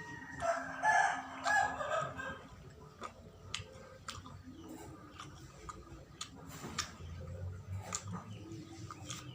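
A rooster crowing once, a drawn-out call that ends about two seconds in. It is followed by scattered small clicks and smacks of someone eating.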